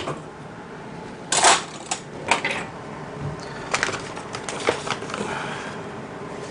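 Metal cutlery clinking and rattling as a spoon is fetched from a kitchen drawer: a string of short clatters, the longest about a second and a half in, then several sharper clinks.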